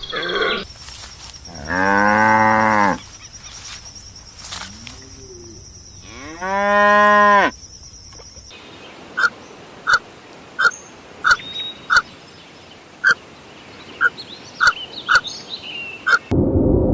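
A cow mooing twice, each moo lasting about a second. In the second half, about ten short high-pitched chirps follow at irregular spacing.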